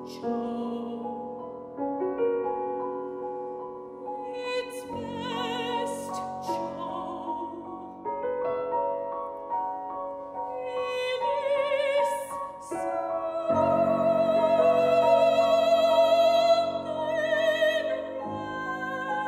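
Soprano singing an operatic aria with grand piano accompaniment. Her voice, with a wide vibrato, swells to a long loud held note about two-thirds of the way through, then falls back.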